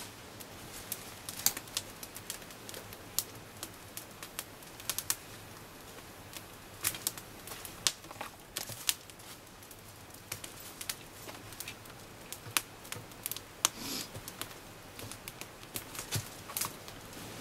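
Small wood campfire crackling, with irregular sharp snaps scattered throughout, a few much louder than the rest.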